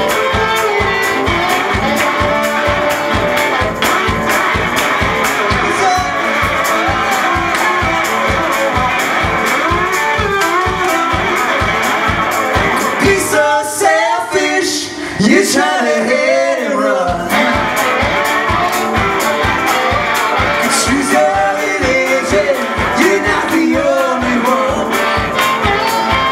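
Live blues-rock band playing: electric guitar, drums keeping a steady driving beat, and a harmonica played into a handheld vocal microphone. For a few seconds around the middle the drums and low end drop out, leaving bending lead lines, and then the full band comes back in.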